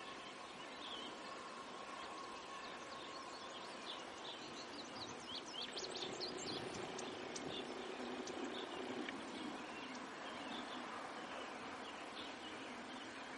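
Birds chirping in short, high calls, busiest around the middle, over a faint steady outdoor noise.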